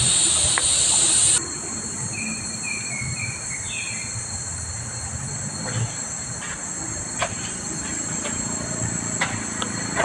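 A loud, high, buzzing insect chorus, likely cicadas, cuts off abruptly about a second and a half in. A steadier, thinner high-pitched insect drone carries on, with a short run of four or five quick bird chirps a couple of seconds later and a few faint ticks after that.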